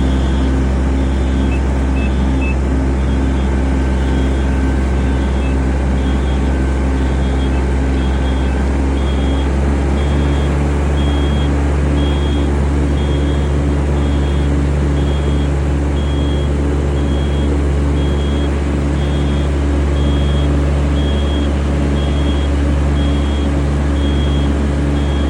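Yanmar rice transplanter's engine running steadily under way, with a short electronic beep repeating at an even pace.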